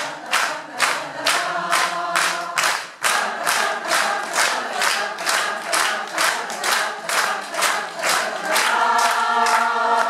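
Mixed choir singing a rhythmic song with steady hand-clapping in time, about three claps a second. Near the end the voices swell into a fuller, held chord while the clapping goes on.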